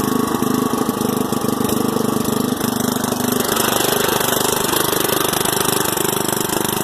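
Craftsman LT10 lawn tractor's small engine running steadily, its pitch shifting slightly about three seconds in.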